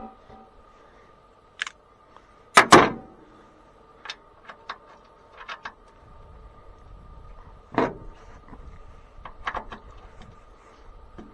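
Hand tools knocking and clicking against metal while working on a bulldozer: a dozen or so scattered knocks, the loudest a double clank about two and a half seconds in and another near eight seconds, over a faint steady hum.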